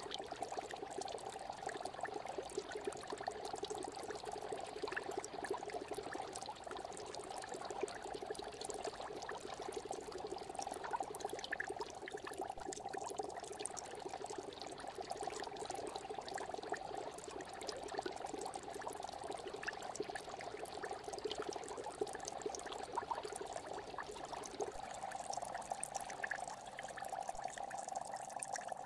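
Steady aquarium water bubbling and trickling from the tank's filter and aeration, a continuous hiss with many small pops; the lower part of the sound drops away about 25 seconds in.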